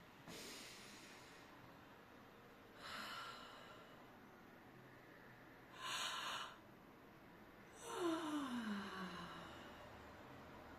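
A person breathing deeply three times, then yawning about eight seconds in, the yawn ending in a long voiced sigh that falls in pitch.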